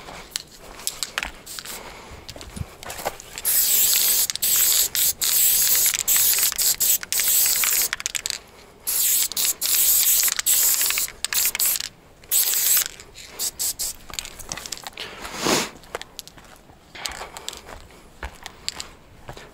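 Aerosol spray paint can hissing in a run of short bursts, each about one to two seconds long with brief gaps between, starting a few seconds in and stopping about two-thirds of the way through.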